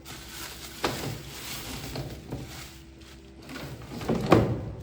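Groceries being handled and set down: rustling with two sharp knocks, about a second in and a louder one near the end, over a faint steady low hum.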